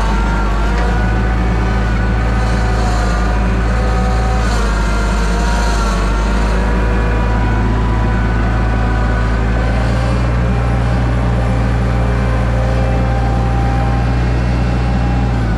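Gehl 6625 skid steer loader's engine running steadily under load, with a higher whine over it that the operator suspects is a failing hydraulic pump.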